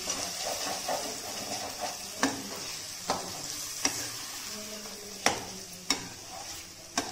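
Green peas and masala sizzling in oil in a kadhai while a metal spatula stirs them, scraping the pan with about six sharp knocks against its side. The masala has been fried until it releases its oil.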